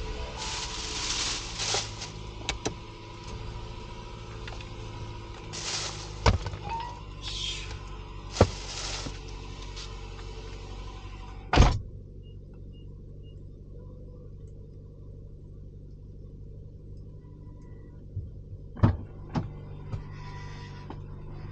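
A car engine idling steadily, with rustling and several sharp thumps; after the loudest thump, about halfway through, the higher sounds drop away and only the muffled low hum of the idle remains.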